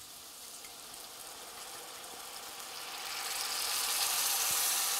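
Red wine poured into a hot cast-iron pan of browned onions and garlic, sizzling as it deglazes the pan. The sizzle grows louder about three seconds in.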